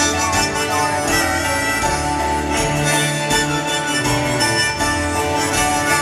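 Live acoustic folk-rock band playing an instrumental break: strummed acoustic guitars, upright bass and piano keeping a steady rhythm.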